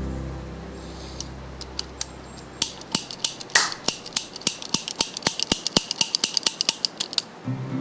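Toy cap gun snapping over and over as its trigger is pulled in quick succession. It starts with a few single sharp clicks, then runs to a rapid string of about five a second for several seconds before stopping.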